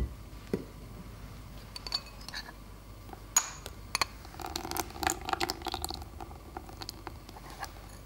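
A few sharp clicks and clinks of glassware and a spatula against a glass mixing bowl, the loudest a little over three seconds in, followed by a cluster of softer clinks as passion fruit juice is poured into the cheesecake filling.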